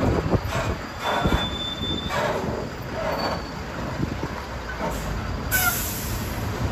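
A vehicle passing with a steady rumble and short thin high squeals, then a loud hiss starting about five and a half seconds in.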